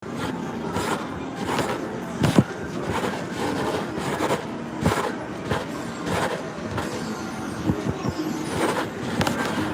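Casino floor ambience: a dense, steady din of crowd and machine noise, broken by sharp clacks and knocks every second or so, the loudest about two and a half seconds in.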